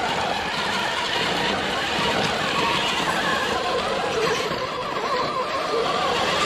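1/10-scale RC crawler's electric motor and gears whining as it drives, the pitch wavering up and down with the throttle, over a steady hiss of noise.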